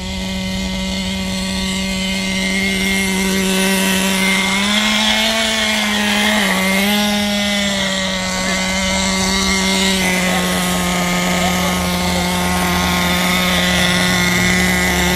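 Tornado S30's small high-revving engine running steadily during its break-in, its note rising a little and dipping briefly around the middle.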